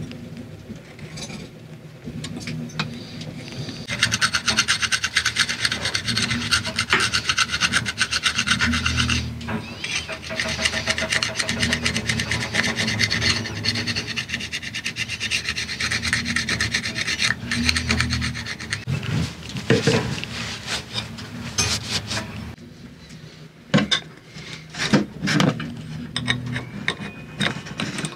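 A small metal engine cover's flange being scraped clean with a hand scraper: a long, dense run of quick scraping strokes that starts a few seconds in and stops several seconds before the end. Scattered clicks and knocks of parts being handled come before and after.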